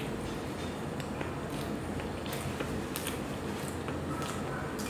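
Close-miked chewing of a soft frosted donut, with faint scattered mouth clicks over a steady background hiss.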